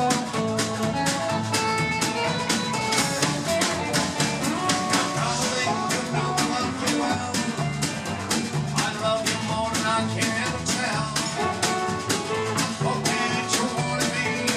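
Country band playing live, guitar lines over bass and a drum kit keeping a steady beat.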